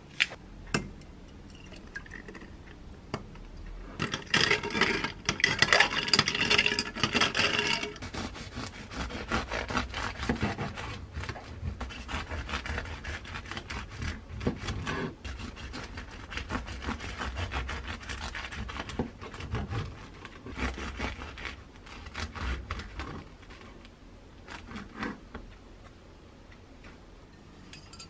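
Serrated bread knife sawing through a small whole-wheat loaf on a wooden cutting board, in repeated back-and-forth strokes. A louder, harsher stretch of scraping comes about four seconds in, and the strokes die away near the end.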